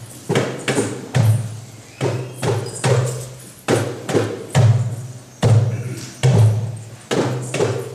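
Slow drumming: deep drum strikes about two a second in an uneven rhythm, each ringing on low and fading, with sharper, brighter strikes among them.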